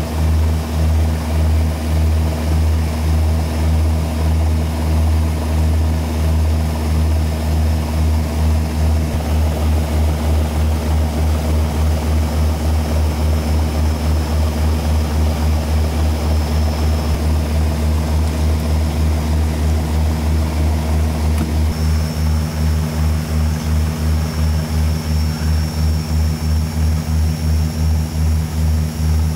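Twin turboprop engines and propellers of a De Havilland Canada Dash 8-200 droning steadily on approach, the low propeller hum pulsing in a regular beat. About two-thirds of the way through, the pulsing becomes quicker and more distinct, and a faint high turbine whine rises slightly.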